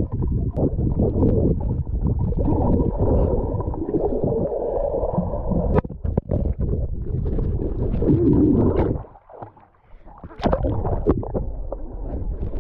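Muffled underwater sound from a GoPro in its waterproof housing: a low, churning wash of water and bubbles as a swimmer moves about in a pool, with scattered clicks. It drops away briefly about nine seconds in.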